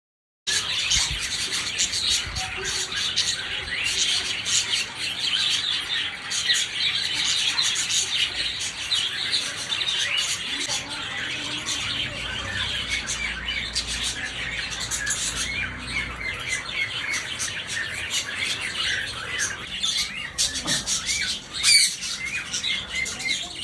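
Many small parrots chattering and chirping at once, a dense, continuous din of overlapping calls, with one louder squawk near the end.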